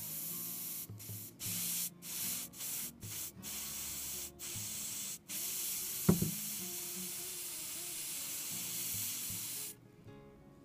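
Steam hissing as a hot soldering iron presses a wet cloth against a wooden rifle stock, raising dents in the wood. The hiss is broken by short gaps as the iron is lifted and set down again, with a single knock about six seconds in. It stops near the end.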